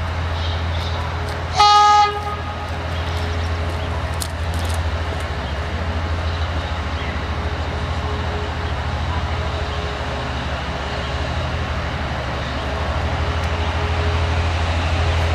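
Romanian diesel-hydraulic locomotive giving one short horn toot about two seconds in, then its diesel engine running with a steady low drone that grows a little louder near the end as it works to pull its train out.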